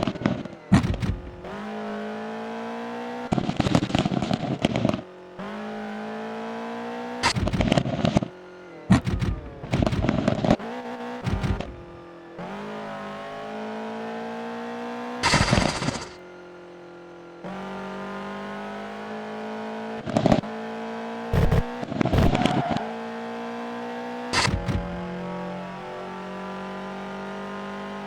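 Car engine and exhaust idling steadily, blipped repeatedly with short, sharp revs, about a dozen times, several in quick pairs.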